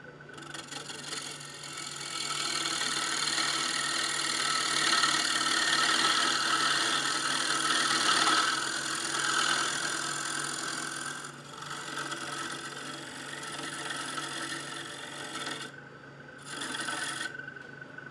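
Turning gouge cutting into the face of a wooden blank spinning on a wood lathe: a steady scraping hiss of the cut over the lathe motor's hum. It eases off for a moment about two-thirds of the way through and stops briefly twice near the end.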